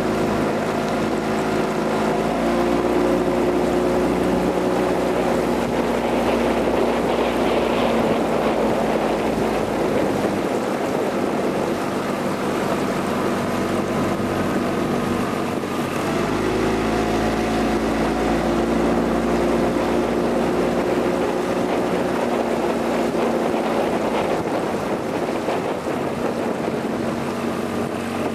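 Motorboat engine of a coaching launch running steadily while pacing a single scull, over a rush of wind and water. Its pitch drops a little a couple of seconds in and rises again a little past halfway, as the throttle changes.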